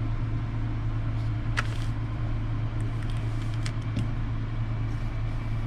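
Steady low background hum, with a couple of faint clicks.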